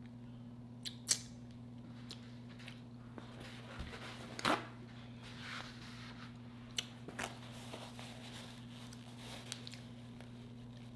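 Faint mouth sounds of a person eating: scattered wet smacks and clicks from chewing and finger-licking, the loudest about four and a half seconds in, over a steady low electrical hum. A paper napkin rustles near the end as hands are wiped.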